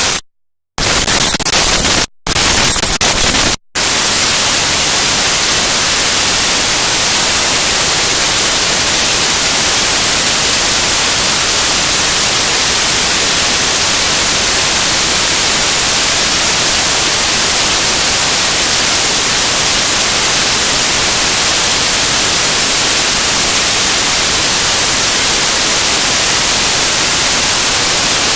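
Raw binary data played back as audio: loud, harsh static hiss spread across all pitches, broken by three short dropouts in the first few seconds and then steady.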